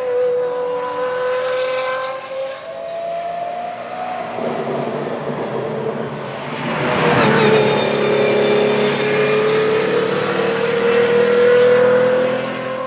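De Tomaso P72 prototype's 6.3-litre naturally aspirated V12 running hard at steady high revs. It gets louder about seven seconds in, where the note dips and then climbs back up over the next few seconds.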